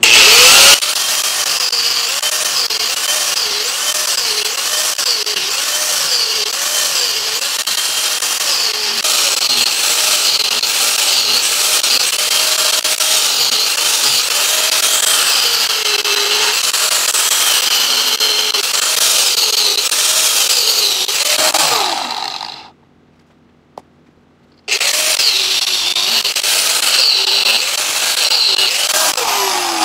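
Angle grinder grinding the thermal rubber coating off a rubber training dummy, its pitch wavering as the disc bites and eases. About 22 seconds in it winds down and stops; after a two-second pause with one click it starts again and runs on, winding down at the very end.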